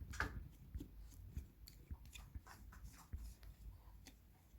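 A grooming brush drawn through a cat's fur in short scratchy strokes, about three a second and unevenly spaced, faint.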